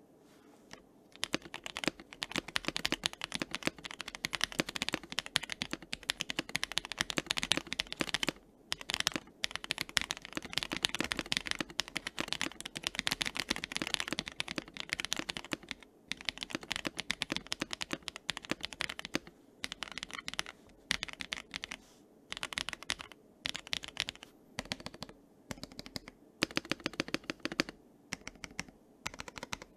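Fast typing on a 3D-printed mechanical keyboard whose case is filled with rice as a dampener, set on a desk mat: a steady run of key clacks with brief pauses, growing sparser toward the end.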